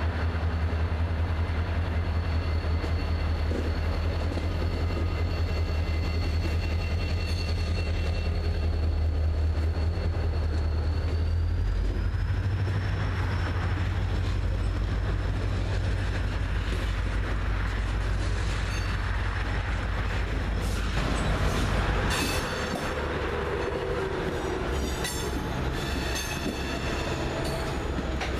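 Norfolk Southern's EMD two-stroke diesel locomotives pull out under power with a deep steady drone, then the covered hopper cars roll past. About three-quarters of the way through, the sound changes to the freight cars rolling over the rails, with a faint wheel squeal and clicks near the end.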